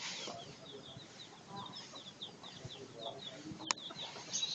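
Chicks peeping: a steady stream of short, high, falling cheeps, several a second, with a few low clucks from the mother hen. A single sharp click comes near the end.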